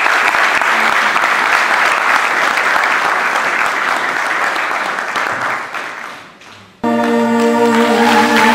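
Hall audience applauding, the clapping fading away after about six seconds; then an abrupt cut to music with steady held notes, with clapping over it.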